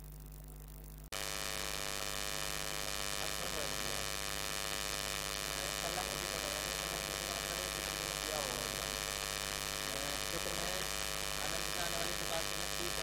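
Steady electrical buzzing hum on the recording, jumping abruptly louder about a second in. It is interference that the uploader puts down to the inverter-powered lighting.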